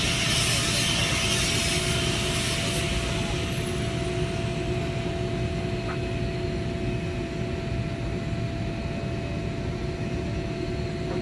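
Steady hum and rumble of running machinery with two steady tones, and a hiss that fades out over the first few seconds.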